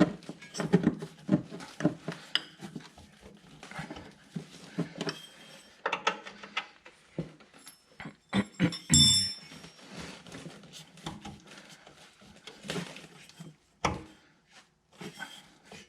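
Scattered metal knocks and clinks of hand tools and suspension parts being worked on a car's rear shock mount, with a cluster of ringing metallic clinks about nine seconds in.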